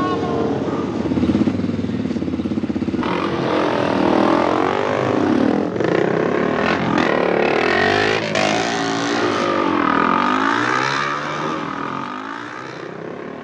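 Motorcycle engines revving, several overlapping engine notes rising and falling in pitch, growing louder about three seconds in and fading near the end.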